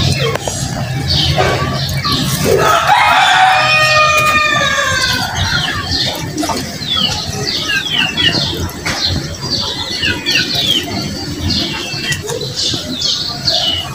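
A rooster crows once, a long arching call about three seconds in. After it come many short, quick, falling chirps from small birds.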